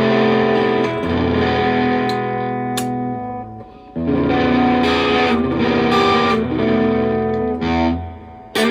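Electric guitar played through a handmade Colorsound-style effects pedal with a distorted tone: held notes and chords that ring, fade out about three and a half seconds in, then a new chord struck at about four seconds that rings and dies away near the end.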